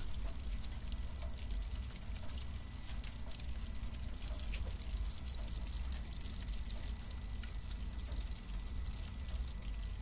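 Cardboard burning: a steady crackle of many small, sharp ticks and pops over a low rumble of the flames.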